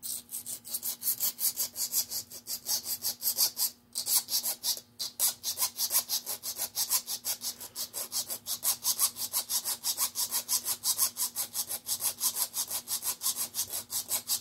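Hand file scraping back and forth over a small metal part in quick, even strokes, about five a second, with two short pauses around four and five seconds in.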